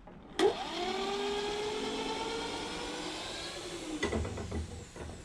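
Electric drill with a long bit starting suddenly, spinning up to a steady whir for about three seconds, then slowing and stopping, followed by a few knocks.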